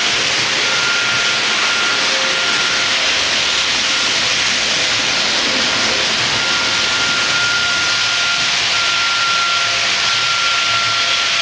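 Märklin model train running on the layout: a steady rushing, hissing running noise with a thin high whine that fades in and out several times.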